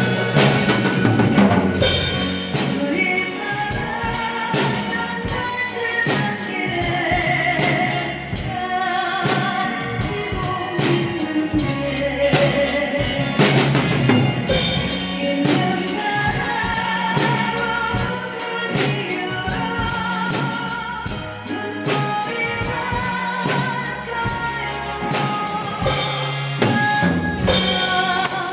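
Drum kit played along to a recorded Korean trot ballad, a woman singing with wide vibrato over the band and steady drum hits under the song.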